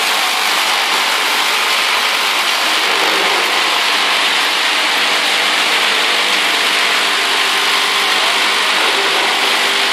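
A fried-snack production line running, with a steady machine hum under a loud, even hiss of fried triangular pellet chips pouring off a conveyor into a hopper.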